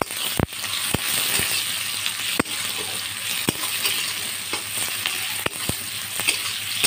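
Sliced onions sizzling in hot oil in a wok as they begin to brown, stirred with a spatula that knocks and scrapes against the pan at irregular moments.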